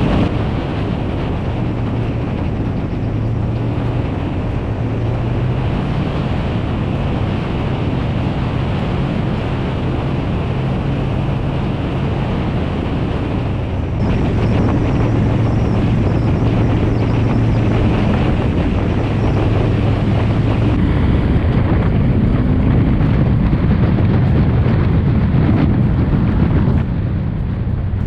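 Harley-Davidson Electra Glide's V-twin engine running steadily at cruising speed, with wind buffeting the microphone. The sound shifts abruptly about halfway through and again near the end.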